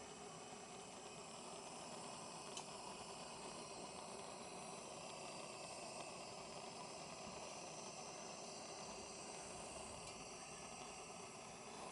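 Coleman 220J two-mantle white-gas lantern burning under pressure, giving a faint, steady hiss. There is one faint click about two and a half seconds in.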